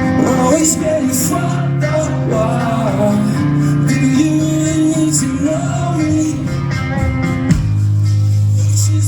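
Rock band playing live, guitars with a sung melody over them, moving to a held low note about seven and a half seconds in.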